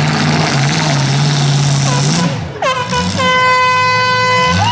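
Derby cars' engines running hard in a loud, noisy roar, which drops away a little over two seconds in; then a long, steady air horn blast sounds to the end.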